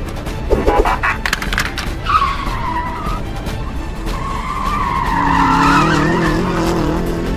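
Sound effects for a toy robot changing into a car: a burst of mechanical clicks with a short rising sweep. From about two seconds in, a car's tyres squeal and an engine runs with a wavering pitch.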